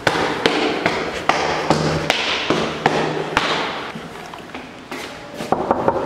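Quick footsteps tapping on a hard floor, about two a second at first, then thinning out, with a quick run of taps near the end.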